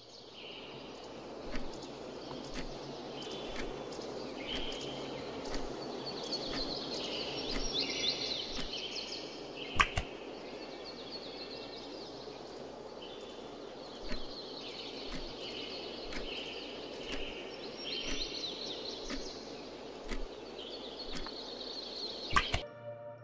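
Birds chirping over a steady outdoor hiss, with a soft tick about once a second and one sharper click near the middle.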